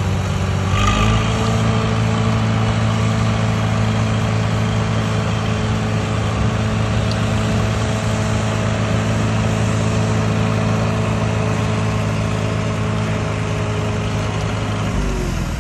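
Case 730 tractor's four-cylinder gas engine running while pulling a rotary mower; it picks up speed about a second in, holds a steady pitch, then drops back near the end.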